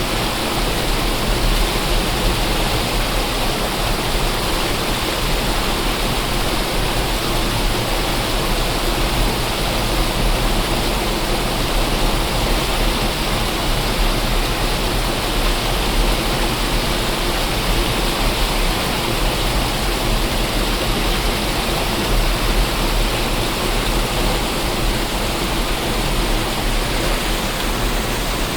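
Waterfall: a steady, loud rush of falling water, even and unchanging.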